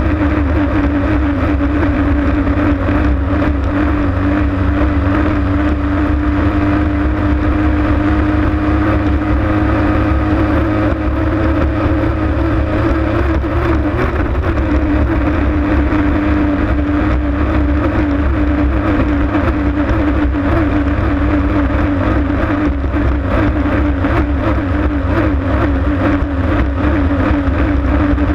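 Racing hydroplane's engine running hard at a steady high speed, heard from on board as a loud steady drone over rushing water and wind. The note wavers briefly about halfway through, then holds steady again.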